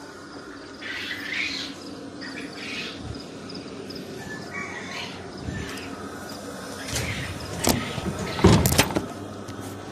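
Chickens squawking in short, separate calls, with faint rapid high chirping in the background. A sharp knock, then a louder one, come near the end.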